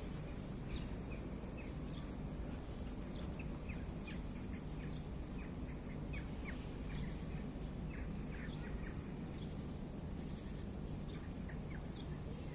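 Small birds chirping in short, scattered calls over a steady low background hum.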